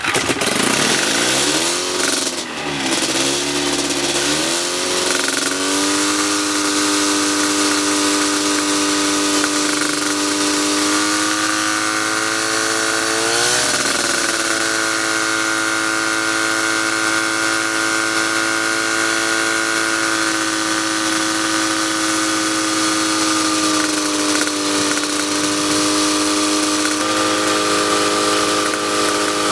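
Brand-new Autoflight 700cc parallel-twin two-stroke aircraft engine on its first run, turning a propeller. Its revs rise and fall unevenly for the first few seconds, then it settles into a steady run, picks up speed a little before halfway with a brief blip of the throttle, and eases back slightly later on.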